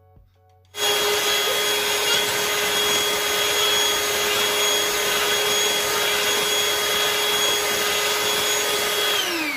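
Electric hand mixer beating thickening heavy whipping cream in a glass bowl. It switches on suddenly about a second in, runs at one steady speed with a high whine, and is switched off near the end, its pitch falling as the beaters spin down.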